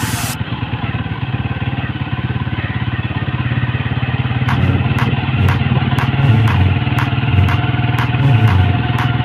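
Motorcycle engine running while riding, heard close from on the bike: a steady low drone whose pitch shifts up and down in the second half. From about four and a half seconds in, sharp ticks come about twice a second.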